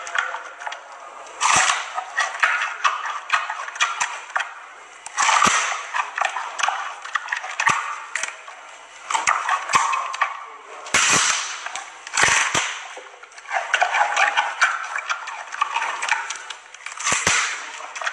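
Giant panda biting and chewing a fresh bamboo shoot. Sharp snapping cracks come every few seconds as it bites through the fibrous shoot, with wet crunching between them.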